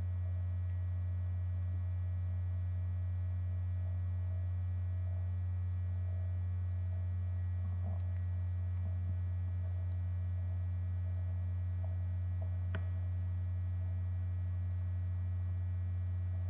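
Steady low electrical hum with a few faint light clicks partway through.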